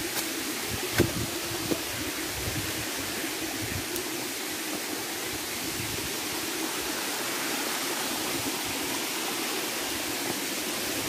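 Steady rush of water from a waterfall stream, with two short knocks about a second in.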